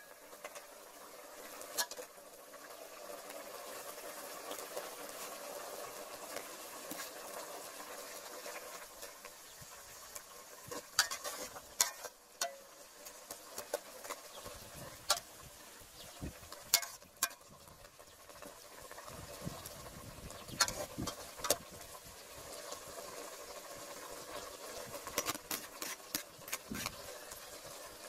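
Fish soup simmering in an aluminium pot, bubbling steadily, while a metal ladle stirs it and now and then clinks sharply against the pot, mostly in the second half.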